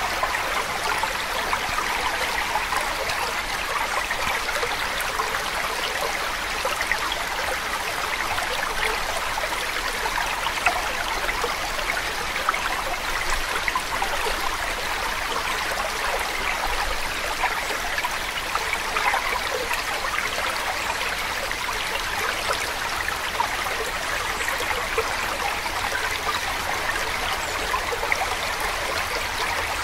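Running water of a stream, steady and even.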